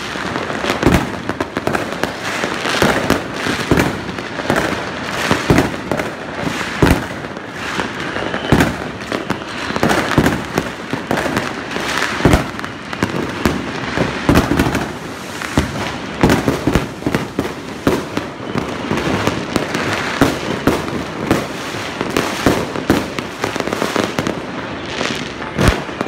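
Fireworks going off without a break: a dense run of sharp bangs, many overlapping, from launches near and far.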